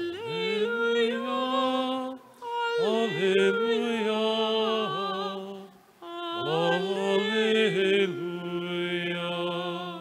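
A solo voice singing the Alleluia of the Gospel acclamation in three long, drawn-out phrases, with a steady held tone sounding behind the voice.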